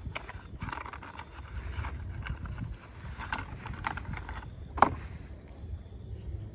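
Cardboard candle box and plastic wrapping rustling as they are handled and opened, with a few sharp clicks, the loudest about five seconds in, over a low rumble of wind on the microphone.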